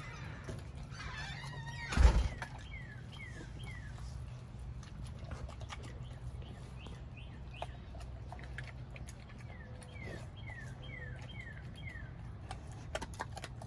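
Pitbull chewing a whole raw chicken, with scattered faint cracks and clicks, and one heavy thump about two seconds in. A songbird sings short descending whistled notes in runs of three to five over a steady low hum.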